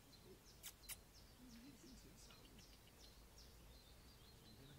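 Faint small birds chirping: a run of short, high, falling notes through the middle, after two sharp clicks just under a second in.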